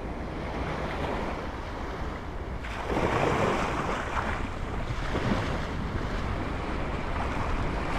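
Surf washing onto the beach, with wind buffeting the microphone; the wash swells louder about three seconds in.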